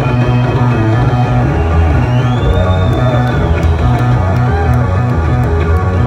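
Solo electric bass guitar played loud through a stage amplifier, with deep sustained low notes and higher notes picked over them. A high tone glides up and holds for about a second, starting about two seconds in.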